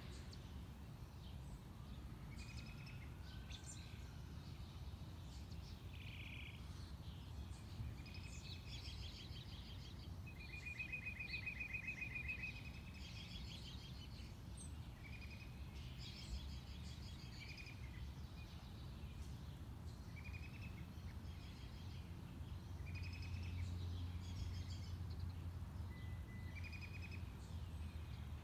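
Several small songbirds calling and chirping, with a rapid trill of repeated notes lasting about two seconds, about eleven seconds in. A steady low rumble runs underneath and swells slightly near the end.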